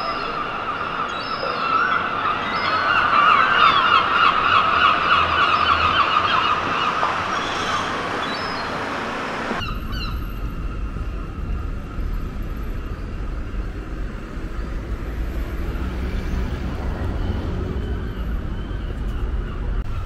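A flock of gulls calling over and over in loud, rapid squawking series. About ten seconds in, the calls cut off suddenly, leaving a steady low rumble of outdoor ambience.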